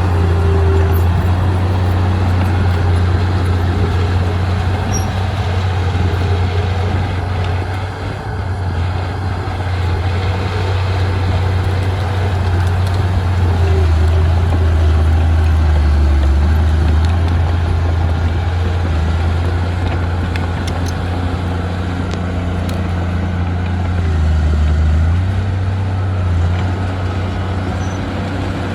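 Heavy diesel engine of earthmoving machinery running steadily under load, its low note dipping and rising a few times, around the middle and again near the end.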